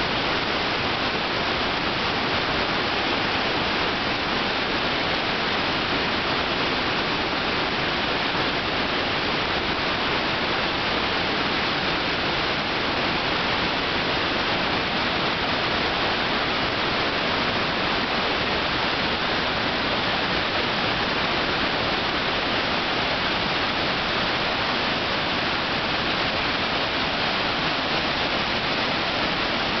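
Victoria Falls in peak flood: a steady, unbroken rush of a huge volume of water plunging into the gorge.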